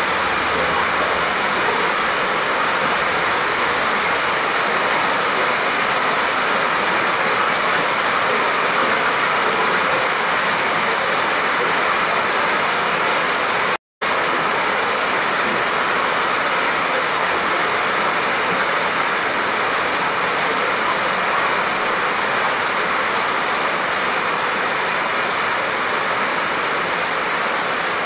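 Rain falling steadily, an even hiss with no separate drops standing out; the sound cuts out for an instant about halfway through.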